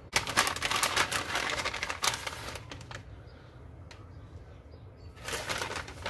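Plastic bag of shredded cheese crinkling as it is handled and the cheese is shaken out, in two bursts of rapid crackling: one over the first two and a half seconds and another near the end.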